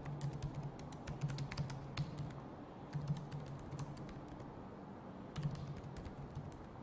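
Quiet typing on a computer keyboard: runs of keystroke clicks with short pauses between them as a web address is entered.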